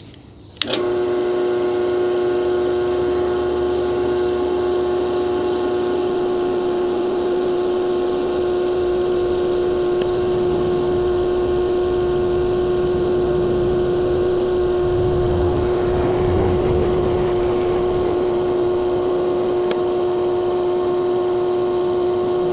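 A benchtop drill press switches on about a second in and runs steadily with a constant motor hum, while a centering bit drills starter holes through a template into a metal plate.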